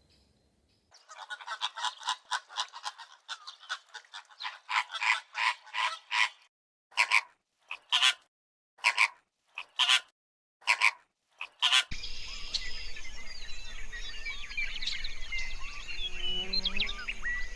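A rapid run of short, sharp animal calls, several a second, that thins out to single calls about a second apart. Then an abrupt change to outdoor background noise with many small bird chirps.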